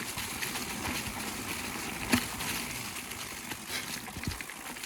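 Footsteps pushing through brush and undergrowth, with scattered twig cracks and rustling and one sharp snap or knock about two seconds in.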